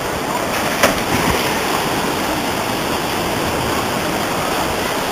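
Steady wash of shallow surf and water churning around wading legs, with one sharp knock a little under a second in.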